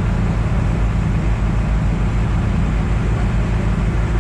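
Tour boat's engine running steadily with a low rumble while the boat is under way.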